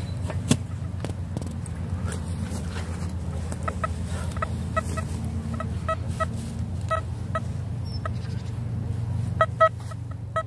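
Metal detector giving short beeping tones over a target in the dug soil, scattered at first and then coming quickly one after another near the end, over a steady low rumble.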